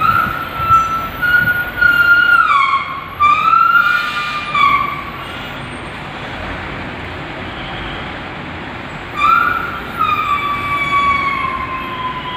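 A siren-like wailing tone in two bouts, holding high, dipping and sliding down in pitch; the second bout falls slowly near the end.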